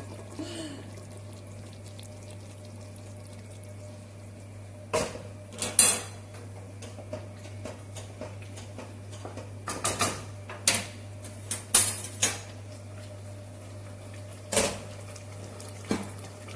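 Pots and kitchen utensils clattering: sharp knocks and clinks in small bunches, about five seconds in, again around ten to twelve seconds, and near the end, over a steady low hum.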